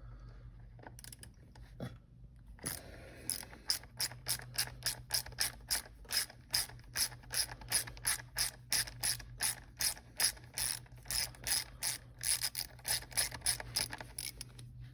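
Hand ratchet with a T40 Torx bit clicking in an even rhythm of about three to four clicks a second as it is worked back and forth to back out tight bolts. The clicking starts a couple of seconds in.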